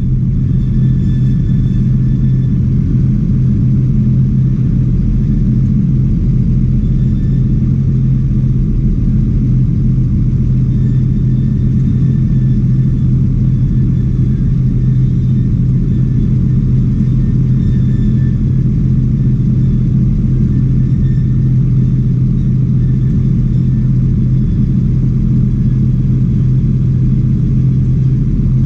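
Tractor's diesel engine running steadily with a low, even drone, heard from inside the cab. It is powering the hydraulics that tip the grain trailer to unload.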